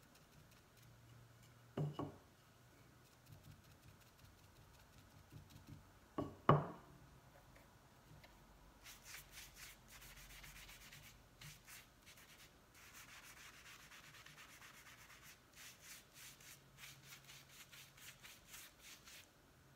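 A brush rubbing stain onto thin wooden frame strips in quick back-and-forth strokes, from about nine seconds in until near the end. Before that come two knocks of wood on the table, the second louder.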